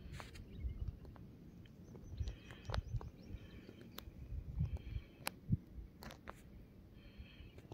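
Bird chirping in three short spells over a low, steady rumble, with several sharp clicks and a single thump about five and a half seconds in.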